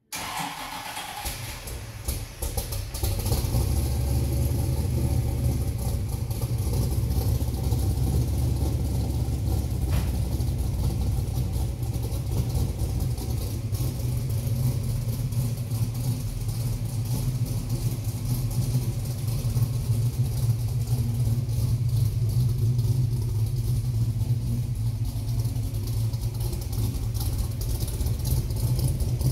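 Butler Performance 505 cubic-inch Pontiac V8, fuel-injected with a billet roller cam, idling steadily, heard at the exhaust tips behind the car. It is a little quieter for the first two seconds or so, then holds a steady deep idle.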